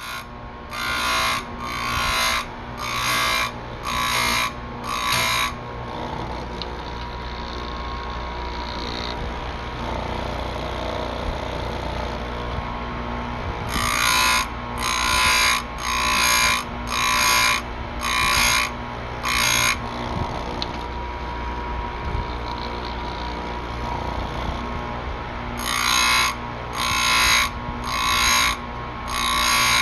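Electric saw-chain grinder running with a steady motor hum, its grinding wheel dipped onto the chain's cutters in quick, evenly spaced strokes of about one every three quarters of a second. There are three runs of six or seven strokes each, with only the motor's hum between them.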